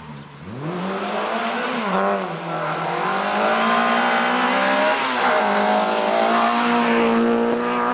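Peugeot 205 rally car's four-cylinder engine accelerating hard. The revs climb and drop back at gear changes about two seconds in and again about five seconds in, then hold high and steady.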